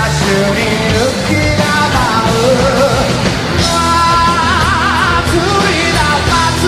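Rock song playing: a singing voice carries the melody over a full band, with a long wavering held note about two-thirds of the way through.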